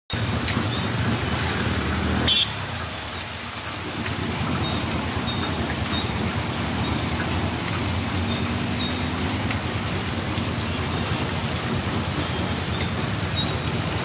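Steady outdoor hiss with birds chirping briefly and repeatedly over it, and a low hum underneath; a short louder sound about two seconds in.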